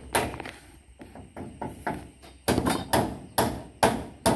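Hammer striking nails into the wooden planks of a porch railing: a few lighter knocks, then from about halfway a steady run of sharp blows, two or three a second.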